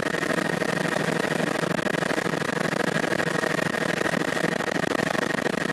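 Helicopter running in steady flight: a constant engine-and-rotor drone with a steady high whine running through it.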